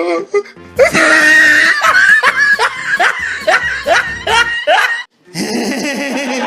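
Loud laughter: a run of quick 'ha-ha' notes, each falling in pitch, that cuts off suddenly about five seconds in.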